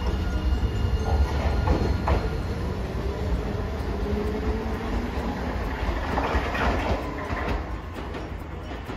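Hiroden 3900-series three-section articulated tram pulling away from a stop: a heavy low rumble of wheels on rail, with a few clunks about one and two seconds in and a humming tone in the middle, growing quieter toward the end as it moves off.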